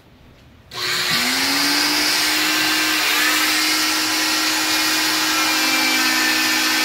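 Cast saw with a dust-extraction vacuum switching on about a second in. Its motor whine rises quickly in pitch and settles into a steady whine over a loud rushing hiss while the blade is worked along the cast. A second, lower tone joins near the end.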